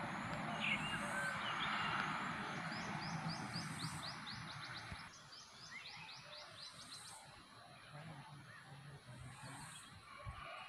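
A bird calling in a rapid run of short, sharp sweeping notes, over a steady rushing noise that fades about five seconds in and a constant high-pitched whine.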